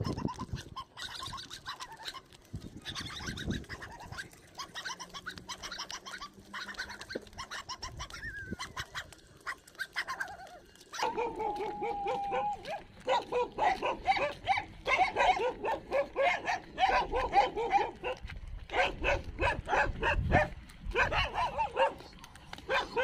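Dogs barking. The first half is quieter with scattered sounds; about halfway in a drawn-out whine starts, followed by rapid, louder runs of barking and yelping.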